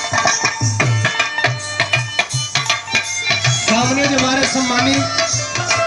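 Indian song with tabla beating a steady rhythm, played over a PA loudspeaker, with a voice singing a wavering line partway through.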